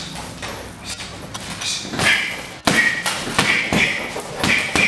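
Gloved punches landing on a heavy punching bag: a few light thuds, then about two and a half seconds in a quick run of about seven harder blows.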